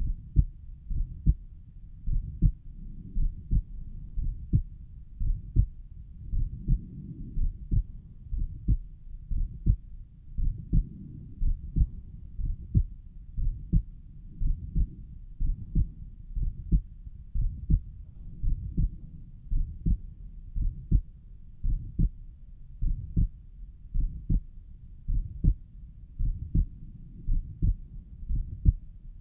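Human heartbeat heard over the pulmonic valve area: a steady lub-dub about once a second, with a low whooshing between the beats. The listener recording it takes this for a mid-systolic murmur.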